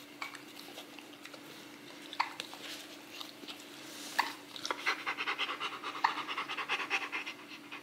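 Rottweiler panting fast and evenly, starting about halfway in and getting louder, with a few sharp clicks earlier on and a steady low hum underneath.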